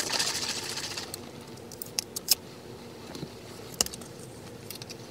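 Small plastic clicks and taps from handling a plastic juice bottle and screwing on its cap, a few scattered sharp ticks, after a brief hiss at the start.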